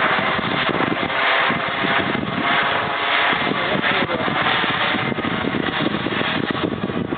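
Gas turbine engine of a radio-controlled model jet running in flight, a steady whooshing jet noise that swells and eases every second or so.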